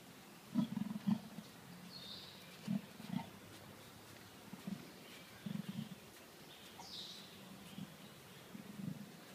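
Leopard calling with a series of short, low grunts, often in pairs, repeating every second or two.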